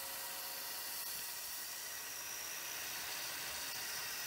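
Steady hiss of compressed air from a milling machine's coolant nozzles in air-only mode, blowing chips clear of an end mill cutting plastic.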